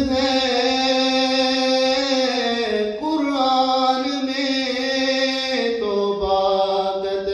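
A man's solo voice singing an Urdu naat with no accompaniment, drawing out long notes; new phrases start about three and six seconds in, the later one lower.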